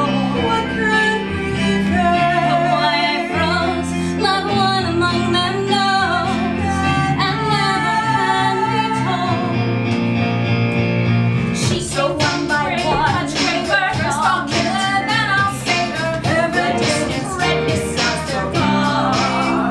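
Musical-theatre ensemble number: singing voices over a band accompaniment. About twelve seconds in, the accompaniment turns heavier and more percussive, with a steady drum beat.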